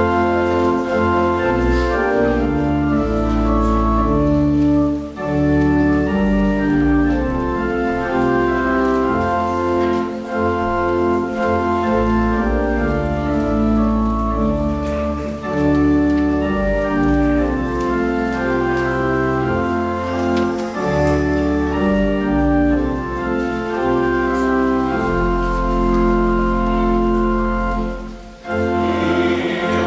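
Church organ playing a hymn introduction: sustained chords over a slowly moving bass line, with a brief break near the end just before the singing starts.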